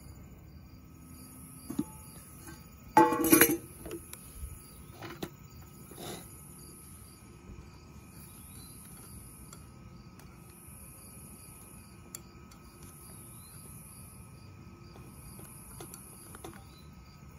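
A loud metal clatter with a brief ring about three seconds in as the lid comes off a skillet on a BioLite wood-pellet camp stove, followed by a few light knocks of a spatula in the pan. Under it the stove's fan hums steadily, and crickets and other insects call in pulses about every two seconds.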